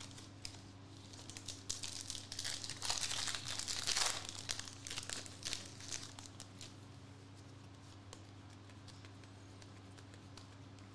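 Foil trading-card pack wrapper being torn open and crinkled by hand, a dense crackling that starts about a second in, peaks a few seconds in and dies away after about six seconds.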